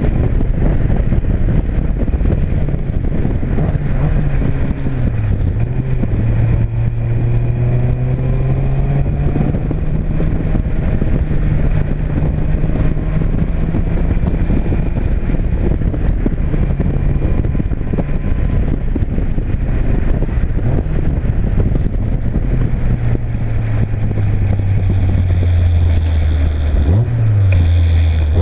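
Open Seven-style sports car's engine, running on a newly fitted Emerald K6 engine management unit, pulling hard up a hill. Its note rises and falls, with sharp drops and recoveries at gear changes about five seconds in and again near the end.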